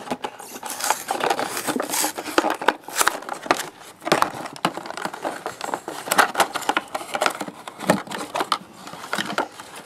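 Clear plastic blister packaging and its cardboard backing card being pulled apart and handled, crinkling and crackling in irregular snaps and rustles.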